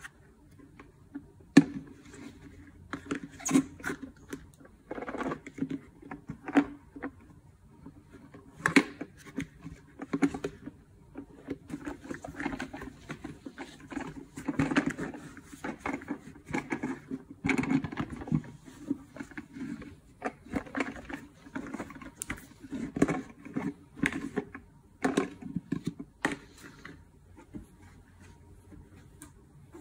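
A cloth rubbing and wiping over the hard glossy plastic housing of a steam generator iron's base station, in uneven strokes. Handling knocks and clicks come through now and then, the sharpest about a second and a half in.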